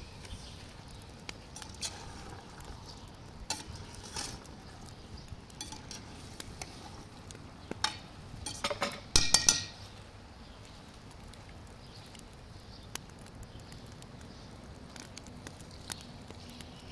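A metal spoon stirring meat and chickpeas in a stainless steel pot, scraping and clinking against the pot in a short burst about nine seconds in, with scattered light clicks before and after. Near the end, water is poured into the pot from a kettle.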